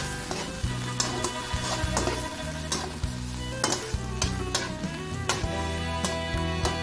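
Slotted spatula stirring and scraping diced pork, onion and tomato in a speckled nonstick wok, with irregular sharp scrapes and taps over the sizzle of the sauté. Background music plays underneath.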